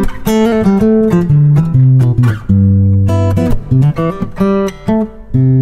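Gusta GDX130C steel-string dreadnought cutaway acoustic-electric guitar played fingerstyle: plucked melody notes over a bass line, with a low chord left ringing for about half a second midway.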